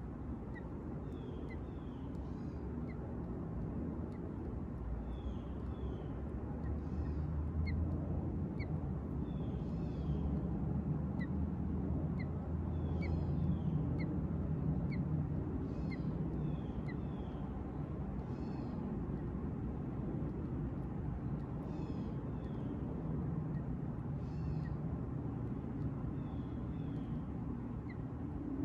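Birds calling outdoors: short high chips about once a second and slurred calls every few seconds, over a steady low rumble.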